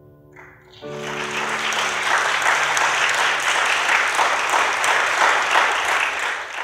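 Audience applause breaks out as the piano's final chord dies away. The clapping swells about a second in, stays loud and steady, and fades near the end.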